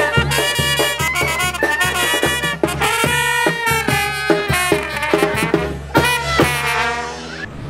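Brass band music, trumpets and trombones over a steady bass beat, dropping in level near the end.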